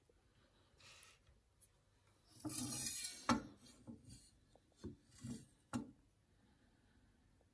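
Kitchen utensils handled on a wooden cutting board: a rasping scrape about two and a half seconds in, a sharp knock just after it, then a few lighter knocks as a chef's knife is set down on the board.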